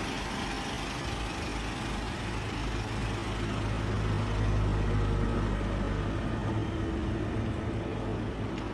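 Street noise with a motor vehicle engine running, a low hum that grows a little louder midway and then eases off.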